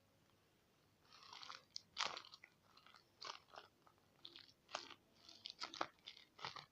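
Crinkling and crunching of paper and tape as a handmade paper squishy is handled, in irregular crackles starting about a second in.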